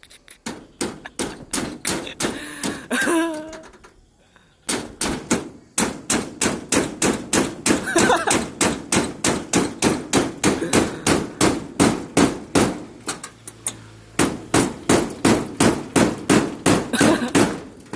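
Rapid, evenly spaced sharp strikes, about three a second, with a short pause about four seconds in.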